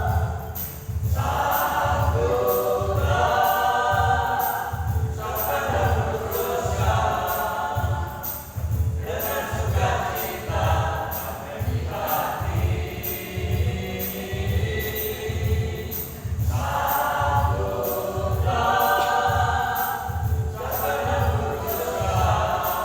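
Church choir of senior singers singing a hymn in phrases with short breaths between them, over an accompaniment with a steady low beat.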